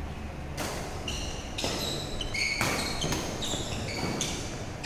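Badminton doubles rally: sharp racket hits on the shuttlecock about once a second, mixed with short high squeaks of shoes on the court floor.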